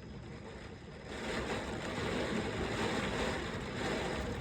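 Strong thunderstorm winds gusting with heavy rain, a steady rushing noise that grows louder about a second in.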